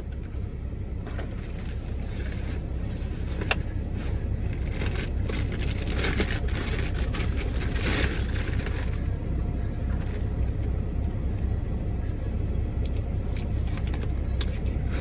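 Steady low rumble of an idling truck engine, with scattered rustling, scraping and crackling from things being handled, busiest in the middle.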